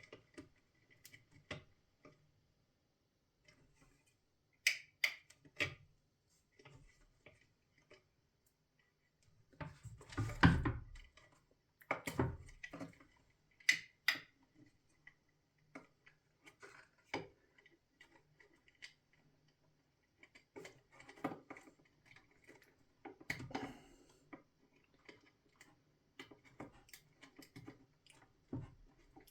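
Small plastic clicks and taps at irregular moments as hands handle the crystal-bed light bar's electronic board and its wire connectors, with one louder knock about ten seconds in.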